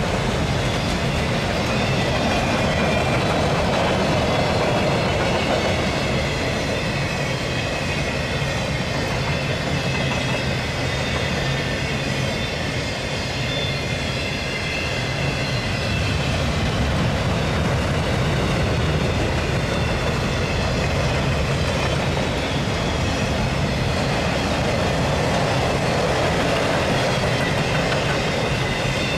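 Autorack freight cars rolling past at steady speed: a continuous rumble and rattle of steel wheels on the rails, with faint high ringing tones over it.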